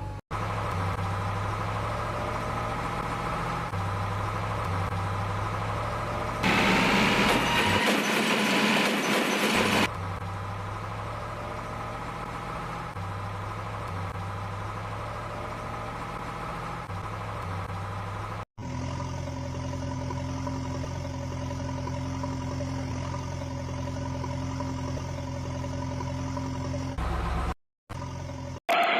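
A heavy engine idling steadily, with a louder, harsher stretch of a higher rising whine about seven seconds in. About two-thirds of the way through it cuts abruptly to a different steady engine hum, with a brief dropout near the end.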